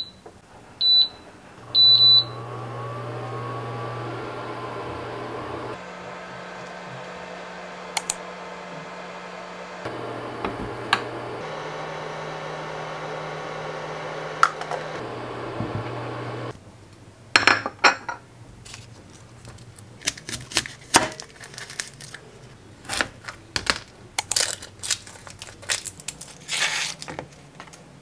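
An Imarflex induction cooktop beeps three times as its buttons are pressed, then runs with a steady hum whose low tone steps up and down as it heats a pot of water. A little past halfway the hum stops and a run of sharp taps and scrapes follows: a kitchen knife working an onion on a plastic cutting board.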